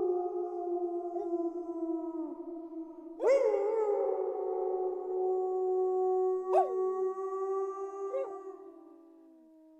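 A pack of wolves howling in a chorus of long, overlapping howls at several pitches. New howls swoop in about three seconds in and twice more later, and the chorus fades out near the end.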